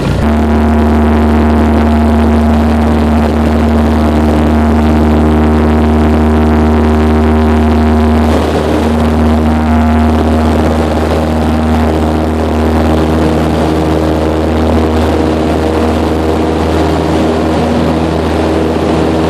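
Citabria's piston engine and propeller opening up suddenly to high power for the takeoff roll, a loud steady drone heard from inside the cockpit. The engine note shifts slightly about eight seconds in.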